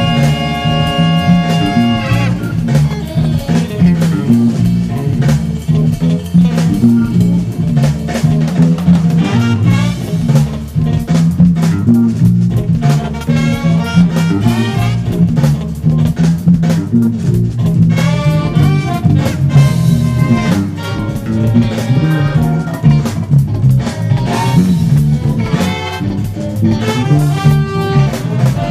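Funk music: an electric bass plays a busy, syncopated line over a drum kit, with saxophone and brass lines above; the horns hold a chord for the first couple of seconds.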